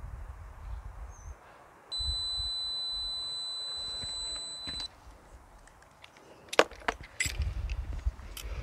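A steady high-pitched electronic beep held for about three seconds, followed by a few sharp clicks and taps near the end over a low rumble.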